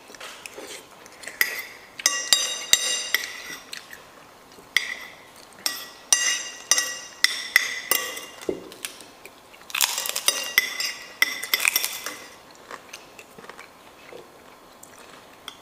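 Metal spoons and forks clinking and scraping against ceramic plates while eating, a string of light clinks, several with a short ring, and a busier run of scraping about ten seconds in.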